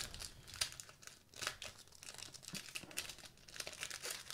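A pack of 2021 Panini NBA Hoops basketball cards being opened by hand: the wrapper crinkling and tearing in faint, irregular crackles.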